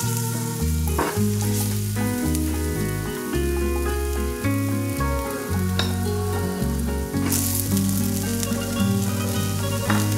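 Chopped spring onion sizzling in hot oil in a nonstick frying pan, moved about with a fork early on; the sizzle swells about seven seconds in. Background music with a steady bass line plays throughout.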